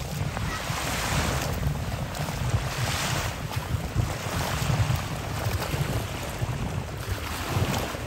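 Wind buffeting the microphone with a steady low rumble, over the hiss and wash of shallow sea water that swells every second or two.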